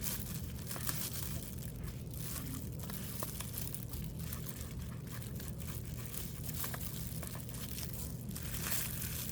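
Soft brush bristles scratching and swishing as they work coloured powder into a silicone dragon mold, with small irregular ticks, over a steady low electrical hum.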